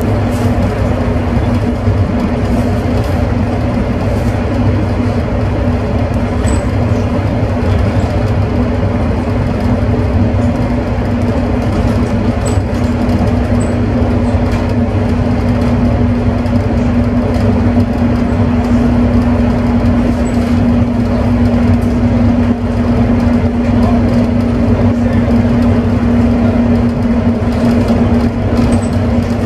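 Scania Alexander Dennis Enviro 300 single-decker bus running at full speed up a gradual hill, heard from inside at the front: a steady engine drone with a constant pitch over low rumble and road noise.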